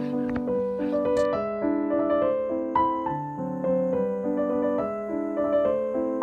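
Background piano music: a gentle melody of held notes moving in steps.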